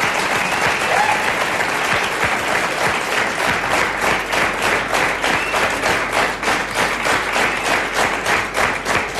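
Studio audience applauding; about three and a half seconds in, the applause falls into rhythmic clapping in unison, about two and a half claps a second.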